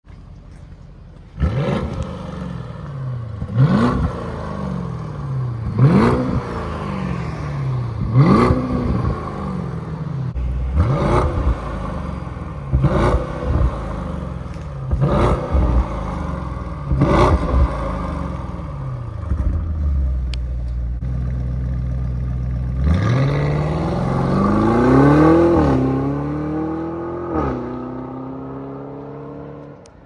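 Audi SQ7's twin-turbo 4.0 V8 through a resonator-deleted exhaust (CTS Turbo resonator deletes, factory downpipes and cat-back): eight quick throttle blips about two seconds apart, each rising sharply and falling back to idle. After a few seconds of idle it pulls away, accelerating and shifting up twice, and fades as it drives off.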